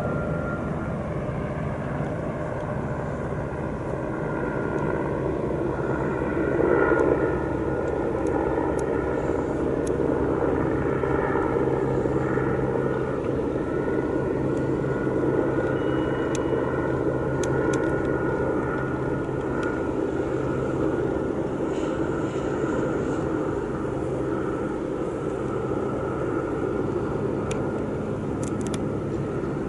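Light helicopter flying past, its rotor and engine making a steady drone that swells briefly about seven seconds in.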